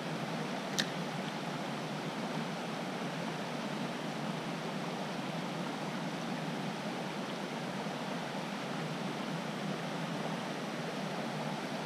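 Steady rushing of a small creek's flowing water, with a single sharp click about a second in.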